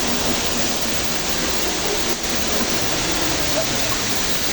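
Steady rush of falling water from a small waterfall pouring into a cave.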